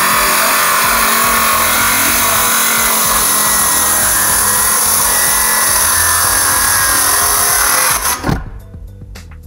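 DeWalt 18-volt cordless circular saw running under load, cutting plywood. About eight seconds in, the saw cuts off and the blade winds down quickly.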